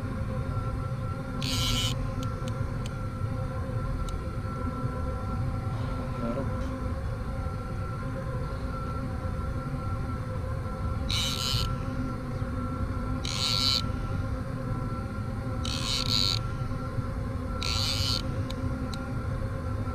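Steady low rumble of wind and sea water on a kayak-mounted camera microphone, under a faint steady hum. Five short hissing bursts cut through it: one about a second and a half in, then four more every two seconds or so in the second half.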